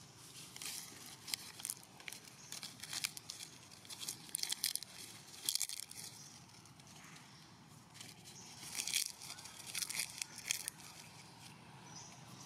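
Irregular dry crackling and rustling in two spells: one over the first six seconds, then quieter, then another spell from about eight to ten and a half seconds in.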